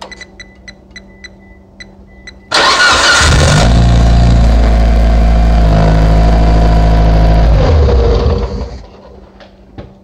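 Car engine cranked by the starter for about a second, catching and running steadily for about four seconds, then switched off and dying away. Before the cranking comes a quick run of short, evenly spaced beeps.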